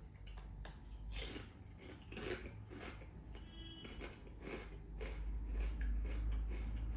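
Someone chewing a crunchy snack: a string of short, separate crunches. A low hum comes up about five seconds in.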